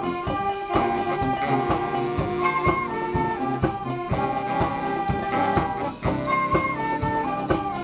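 Background music with brass instruments over a steady beat.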